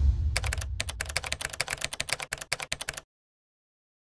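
Keyboard-typing sound effect: a fast, uneven run of key clicks, about seven a second, over the fading tail of a deep boom, stopping abruptly about three seconds in.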